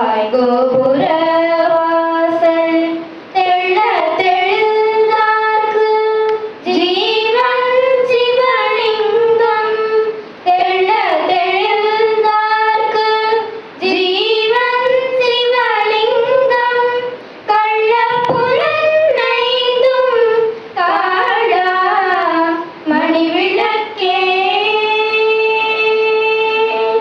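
Children singing a devotional prayer song in long, held melodic phrases of a few seconds each, with brief breaths between them.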